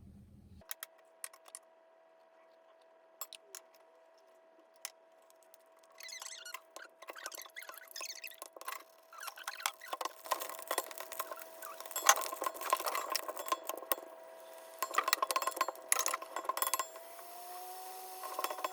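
Light clinks and taps of glass and dishes being handled, sparse at first and busier from about six seconds in, over a steady hum whose pitch steps up near the end.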